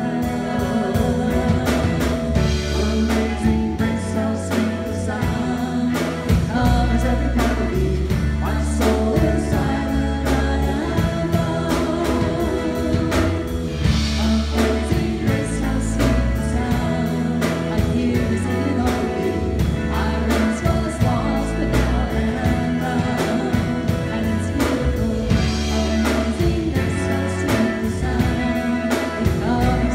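Live worship band playing a song with singing: vocals over electric guitar, drum kit and keyboard.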